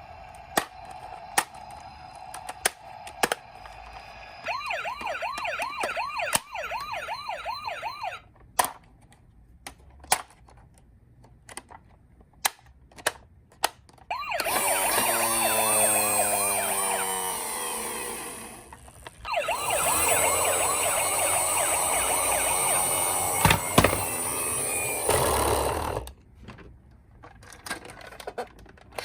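Electronic siren sounds from toy ambulances and police cars. A fast warbling wail starts about four seconds in, and two longer siren passages follow past the middle. Sharp clicks and knocks come throughout, from the plastic toys being handled.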